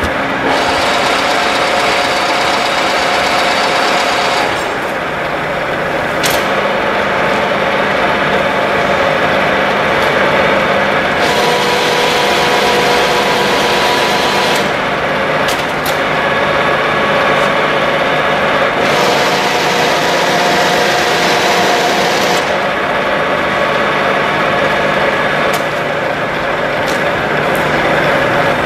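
Huron MU6 universal milling machine running: a steady hum and gear whine. A higher hiss and whine cut in and out abruptly every few seconds.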